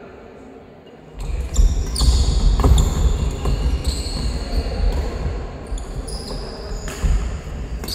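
Badminton doubles rally starting about a second in: rackets striking the shuttlecock with sharp cracks, players' shoes squeaking on the court, and heavy footfalls thudding in a large hall.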